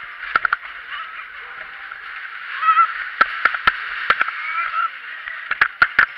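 Muffled rushing noise of a fast-spinning fairground ride heard from a camera on the riders' car, broken by clusters of sharp clacks and knocks, with a rider's brief rising shout a little before the middle.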